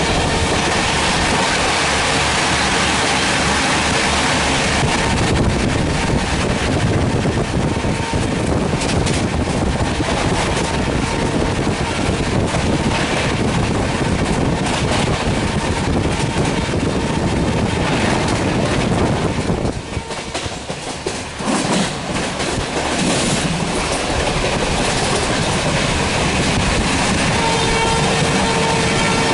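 Train passing at speed, its wheels clattering steadily over the rail joints, with a brief lull about two-thirds of the way through. Near the end a locomotive horn sounds as one long steady note.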